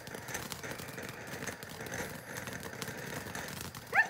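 Ground fountain firework spraying sparks: a steady hiss with scattered crackles. Near the end comes a brief, loud, rising squeal.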